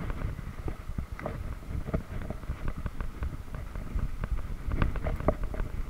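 Mountain bike riding down a dirt forest trail: a low rumble of wind on the microphone, with scattered clicks and rattles from the bike jolting over the bumps.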